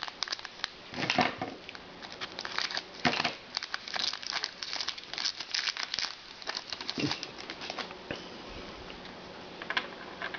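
Trading-card pack wrapper being crinkled and torn, with cards handled, a dense run of sharp crackles that dies away about two seconds before the end, leaving one brief rustle near the end.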